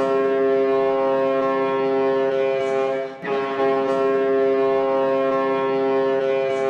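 Ice hockey goal horn sounding in long, steady, multi-toned blasts, with a short break about three seconds in.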